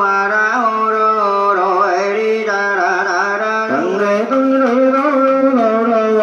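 Buddhist monk's sung chant, a slow, ornamented melodic line sung into a microphone over a steady held low note.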